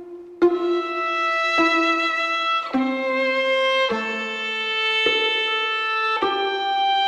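Background music: a solo violin playing slow, held notes, each note changing about once a second.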